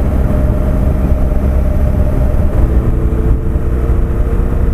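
Motorcycle engine running at a steady cruise, heard over a loud low rush of riding wind. The engine note shifts a little lower about two and a half seconds in.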